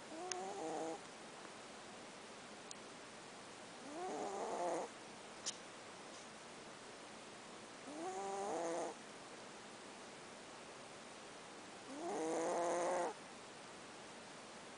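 A pet snoring in slow, regular breaths: four pitched snores, each about a second long and rising in pitch as it starts, about four seconds apart.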